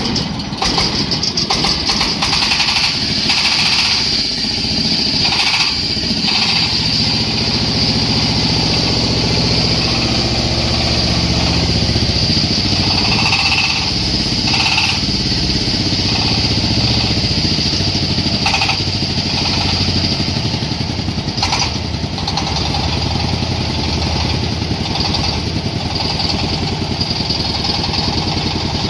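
Engine of a self-propelled corn sheller starting up and running steadily, with a low drone and a few sharp knocks along the way.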